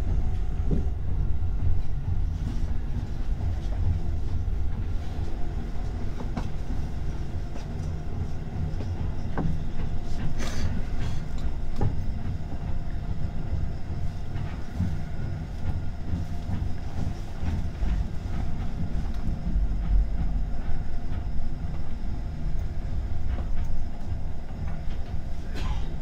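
Electric commuter train running at reduced speed, heard from inside the driver's cab: a steady low rumble of wheels on rail, with a few sharp clicks and knocks from the track.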